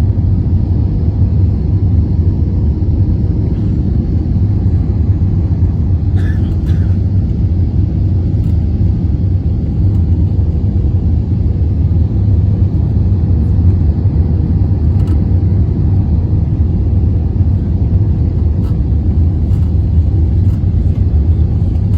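Steady low rumble of a vehicle in motion, heard from inside it, even throughout, with a few faint clicks.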